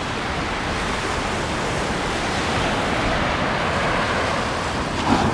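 Sea surf washing onto the beach, a steady rush of noise that swells a little near the end, with wind on the microphone.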